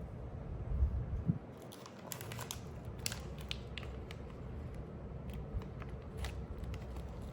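Hands handling box packaging: a couple of low thumps about a second in, then crinkling and scattered small clicks and taps.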